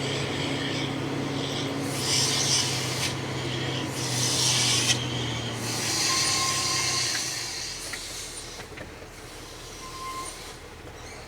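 Truck's diesel engine and brakes as it slows for a speed bump: a steady low drone that fades away about seven seconds in, with several short bursts of high hissing and rasping noise.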